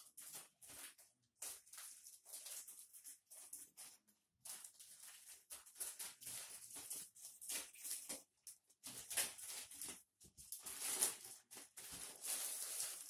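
Plastic courier mailer being torn open and handled, with irregular crinkling and crackling of the plastic as the shoebox wrapped in plastic film is pulled out.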